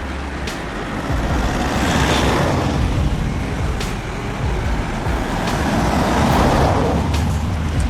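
Road traffic with heavy vehicles passing: two passes swell and fade, one about two seconds in and another about six seconds in.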